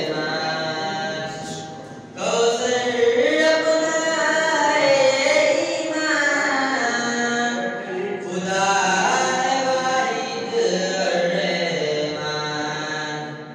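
A young man's solo voice singing a naat, a devotional chant, in long melodic phrases with held, gliding notes. It breaks briefly about two seconds in and again near the end.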